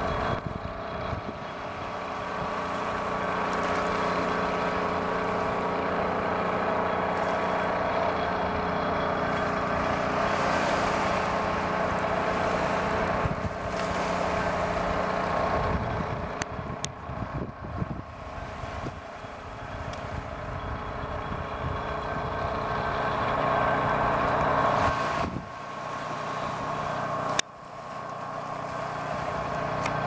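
A steady motor hum with several steady tones under a rushing noise. It weakens and wavers in the second half, then drops suddenly with a click near the end.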